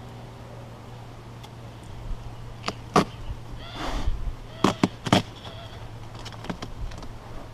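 Honeybees buzzing in a steady drone during a package installation, with several sharp knocks near the middle and a brief rustle between them.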